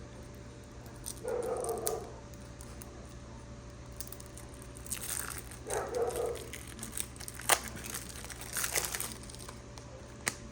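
Plastic shrink wrap crinkling and tearing as a pack of cards is unwrapped, in short crackly bursts through the middle and later part. Two short, muffled low sounds come about 1.5 s and 6 s in.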